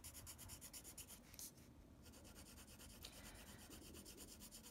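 Coloured pencil scratching on paper in fast, even back-and-forth shading strokes, faint, with a short pause about a second and a half in.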